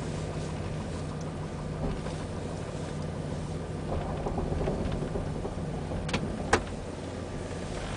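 Chevrolet Tahoe's 5.3-litre V8 running while the truck is driven, heard from inside the cabin as a steady low hum. The engine is cold and knocking, which the owner takes for piston slap. Two sharp clicks come about six seconds in.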